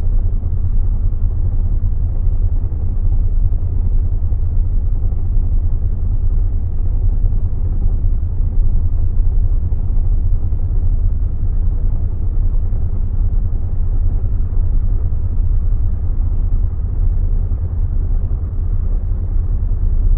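Steady low rumble of a city bus driving along, its engine and road noise heard from inside the cabin, with no sudden sounds.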